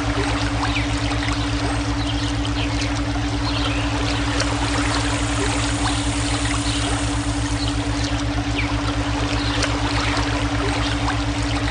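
Flowing water, a steady stream trickling with small splashes, mixed with steady low hum-like tones that throb quickly and evenly: a brainwave-style tone track laid under the water.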